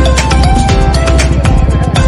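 Loud background music with a heavy bass and a steady beat.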